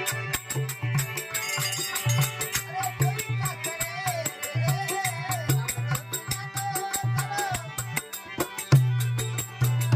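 Indian folk music: a hand drum beating a steady rhythm with rattling percussion over it, and a wavering melody line from about three to eight seconds in.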